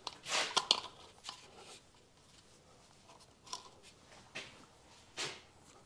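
Faint handling noises from a plastic fuel bottle being lifted and hung up: a cluster of short rustles and light knocks at the start, then a few single ones spread apart.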